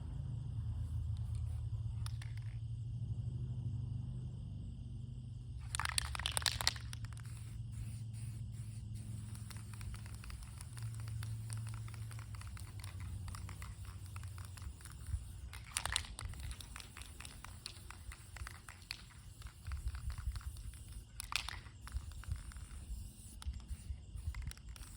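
Aerosol spray-paint can hissing in three short bursts, the first about a second long, over a steady low rumble, with faint crackling and handling ticks in between.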